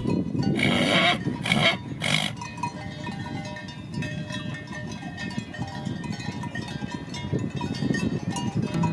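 Farm livestock calling: three short, loud calls in the first two seconds or so, then a steady jumble of quieter herd noise.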